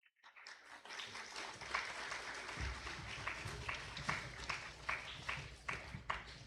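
A group of people clapping together in a steady rhythm, about two to three claps a second, over a low hubbub. It starts suddenly out of silence.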